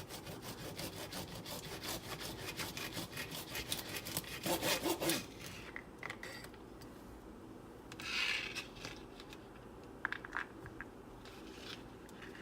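Kitchen knife chopping through a bundle of green beans on a cutting board: quick repeated cutting strokes for about five seconds, then a short scrape and a few light knocks.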